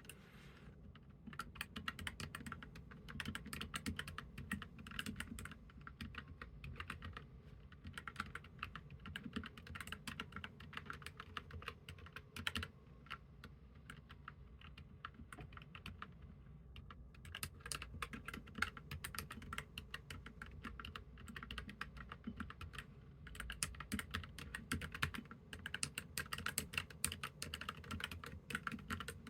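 Typing on a Keychron K3 Pro low-profile mechanical keyboard with red linear switches: a fast, continuous stream of key clacks that thins out briefly about halfway through.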